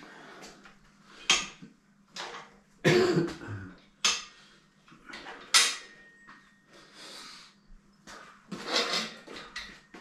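Metal tools and bike parts clinking and clattering during the strip-down of a bike frame: a handful of sharp, irregular knocks, the loudest about three seconds in and another cluster near the end.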